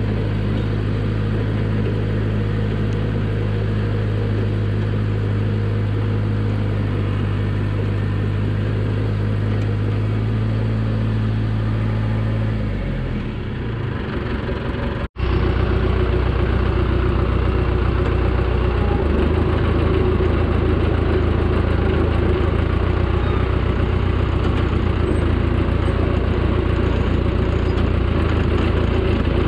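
1975 John Deere 450B crawler dozer's four-cylinder diesel engine running steadily as the machine is driven. About halfway the engine note wavers and dips, then breaks off abruptly and comes back louder and steady.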